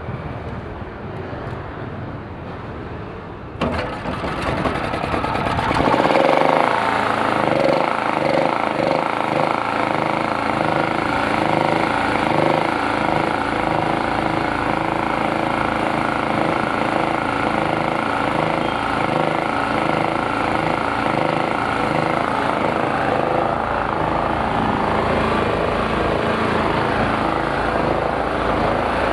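Krisbow generator's small petrol engine, its carburettor cleaned after long storage, running. It gets suddenly louder a few seconds in, then runs steadily with a note that wavers up and down regularly.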